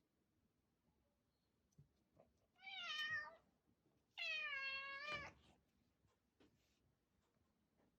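A kitten meowing twice: a short meow about two and a half seconds in, then a longer one about a second later that drops in pitch at its end.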